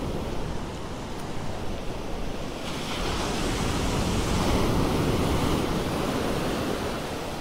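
Ocean surf breaking and washing up a sandy beach: a steady rush of water that swells louder for a few seconds in the middle.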